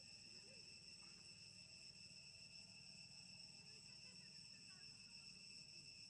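Faint, steady high-pitched drone of insects, several even pitches held without a break.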